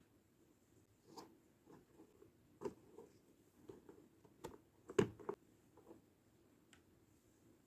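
Scattered light clicks and soft rustles from small plastic toy pieces and packaging being handled, about eight separate touches, the sharpest about four and a half and five seconds in.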